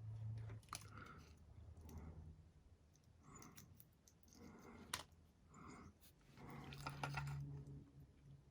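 Quiet bench work on small electronics wiring: scattered light clicks and snips of hand tools and wire, with one sharper click about halfway through.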